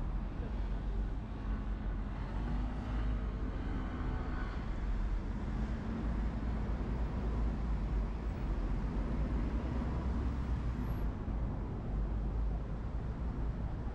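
Steady road traffic on a wide multi-lane city boulevard, a continuous rumble of passing vehicles, with one engine's hum standing out a couple of seconds in.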